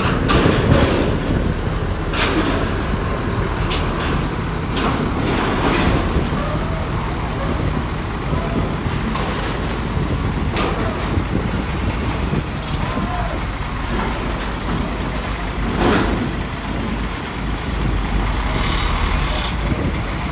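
Heavy buses and trucks running and moving slowly in a queue, a steady engine and traffic rumble with several short sharp sounds scattered through it.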